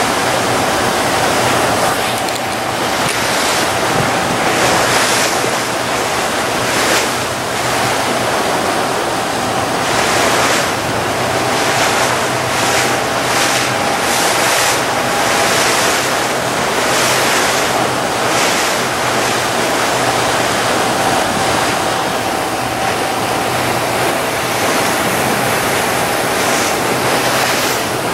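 Motorboat under way through open-sea chop: a steady engine drone beneath heavy wind buffeting the microphone, with repeated rushes of spray as the hull slaps through the waves, most of them in the middle stretch.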